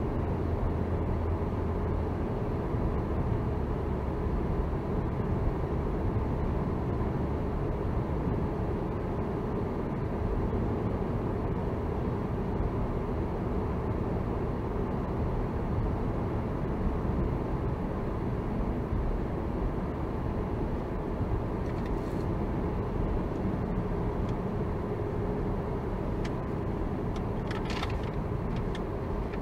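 Steady tyre and engine noise of a car driving along the road, heard inside the cabin through a dashcam's microphone, with a few brief ticks near the end.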